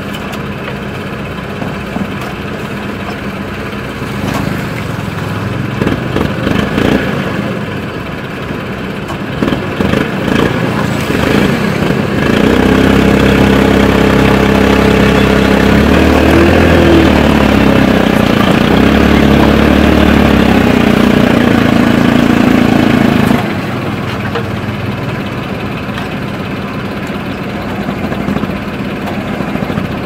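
Mitsubishi WS200A backhoe loader's diesel engine running while the backhoe arm digs. It swells a few times, then jumps to a loud, steady, higher-revving run under load about twelve seconds in. About eleven seconds later it drops back suddenly to idle.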